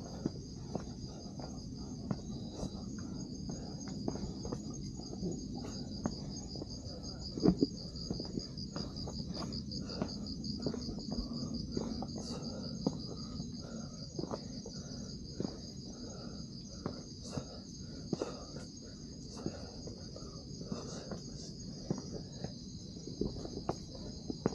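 A steady, high chorus of night insects. Beneath it are irregular footsteps and knocks on a hill trail, about one or two a second, with one louder knock about seven seconds in.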